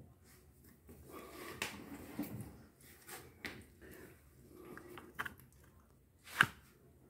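Handling noise from a phone being gripped and set in place: fingers rubbing and tapping close to its microphone, with scattered clicks and rustles and one sharp knock about six seconds in.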